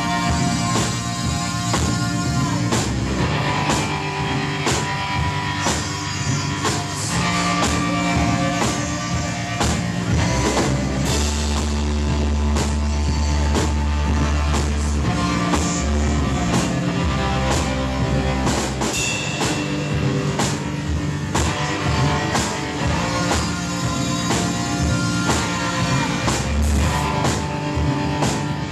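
A live rock band playing an instrumental passage: an Arturia MicroBrute analogue synthesizer, electric guitar and drum kit. A deep bass note is held for several seconds near the middle.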